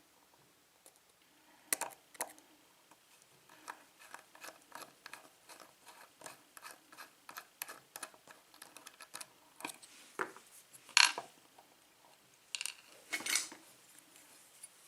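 Small metal parts of a Schlage pin-tumbler lock cylinder clicking and tapping as it is taken apart and the plug is worked out of the housing. A run of light clicks, several a second, is followed about eleven seconds in by one sharp metallic click and then a short cluster of louder taps.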